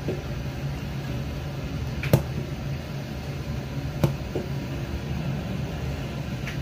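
Steady low hum of a running appliance, with a few sharp taps about two seconds apart.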